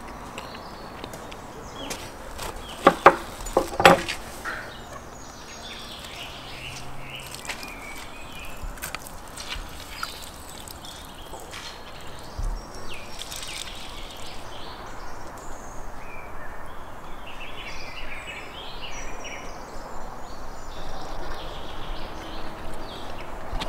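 Birds calling in the background with many short chirps, over a steady outdoor hiss. A few sharp, loud knocks or calls come about three to four seconds in.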